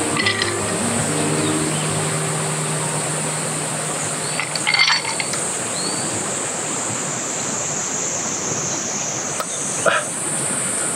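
Steady high-pitched chorus of cicadas. A few short knocks sound near the start, about halfway through and near the end. Background music trails off in the first seconds.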